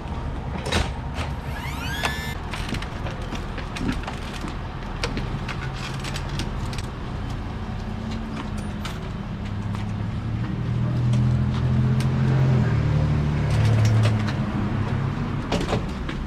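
A motor vehicle running, a steady low rumble with scattered clicks and knocks; the engine drone grows louder and stronger from about ten seconds in, then eases off near the end.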